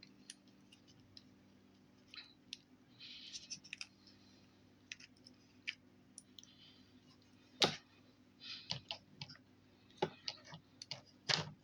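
Scattered light clicks and taps of plastic Play-Doh molds and tools being handled, with a few short rustles. The loudest click comes about two-thirds of the way through.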